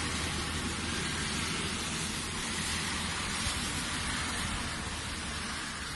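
Steady, even hiss of water, with no pauses or distinct splashes.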